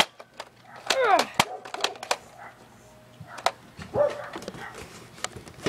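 Two short yelping cries, the first falling steeply in pitch, among scattered sharp clicks.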